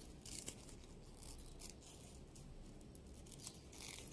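Faint, scratchy rustling of yarn being drawn through stitches by a metal crochet hook, in a few short strokes while slip-stitching along the edge of the work.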